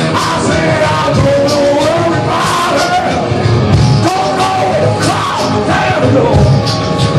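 Live punk rock band playing loudly, with drums and repeated cymbal crashes under a shouted, sung vocal line.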